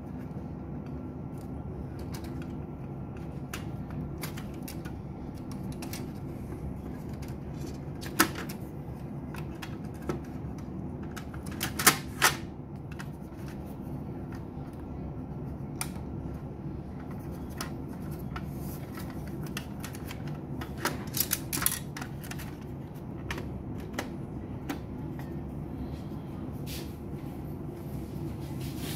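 Scattered plastic and sheet-metal clicks and knocks as the laser scanner unit of an HP LaserJet Pro M501 printer is handled and seated in the printer's frame. There is a sharp click about eight seconds in, a quick cluster around twelve seconds and several more a little after twenty seconds, over a steady low hum.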